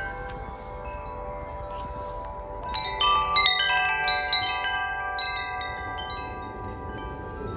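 Tubular metal wind chimes ringing in the wind. Several overlapping tones hang on, and a quick flurry of strikes about three seconds in rings loudest before it fades.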